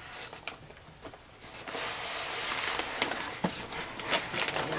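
Plastic packaging rustling and crinkling as it is handled, starting about a second and a half in, with a few sharp clicks near the end.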